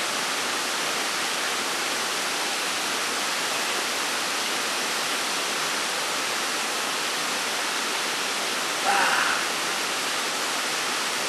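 Steady, even rushing noise with no rhythm or pitch, and a brief voice sound about nine seconds in.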